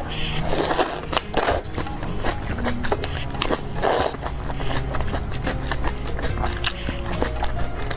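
Eating sounds close to the microphone: three short slurps, about half a second in, at one and a half seconds and at four seconds, with chewing and small clicks between them, over soft background music.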